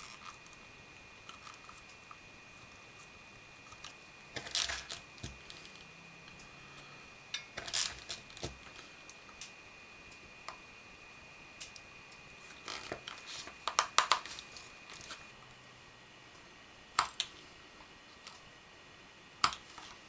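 Hands handling a stitched leather pouch with metal snap fasteners: scattered rustles, taps and clicks of leather and hardware, with a quick run of the loudest clicks about two-thirds of the way through.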